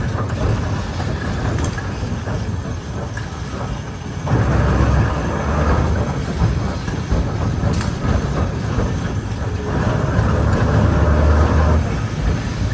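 Historic electric tram rolling slowly along rails: a steady rumble of the wheels on the track and the running car, getting louder about four seconds in.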